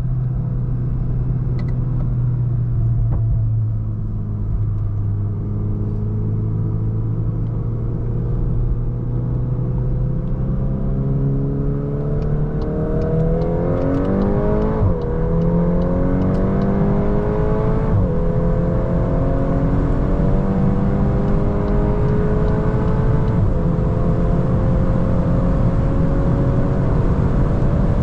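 Volkswagen Golf 8 R Performance's turbocharged 2.0-litre four-cylinder accelerating, its engine note climbing steadily in pitch. There are three quick upshifts, each a sudden drop in pitch: about halfway through, a few seconds later, and again near the end. A steady rumble of road and wind noise runs underneath.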